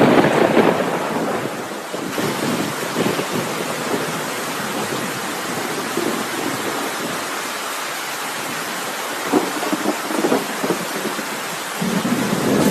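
Recorded thunderstorm sound effect played over stage loudspeakers as part of the dance soundtrack: a rumble of thunder at the start, then steady heavy rain hiss, with a few more low rumbles near the end.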